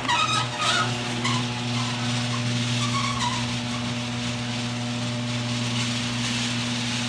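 A machine running steadily: a low, even hum with a hiss over it.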